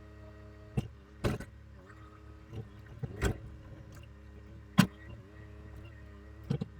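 Bobcat E42 mini excavator's diesel engine and hydraulics running steadily, the pitch dipping briefly a few times as the hydraulics take load. About five sharp metal clanks from the bucket and arm linkage while digging, the loudest near the end of the second third.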